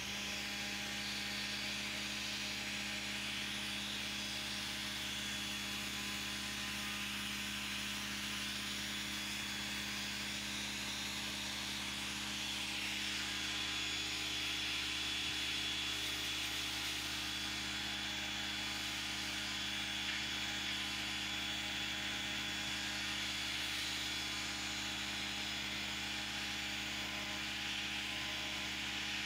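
Pressure washer running steadily: a constant motor-pump hum under the hiss of the high-pressure water jet blasting mould and grime off corrugated roof sheets.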